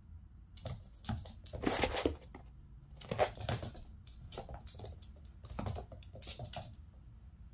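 A Sphynx kitten's paws and claws skittering on a hardwood floor in several short bursts of quick taps and scrapes as it dashes and spins after the laser dot.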